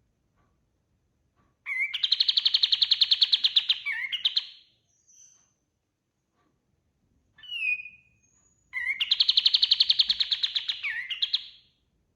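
Kapas tembak (a bulbul) singing two long, fast trilling phrases of about two and a half seconds each, with a short slurred note between them.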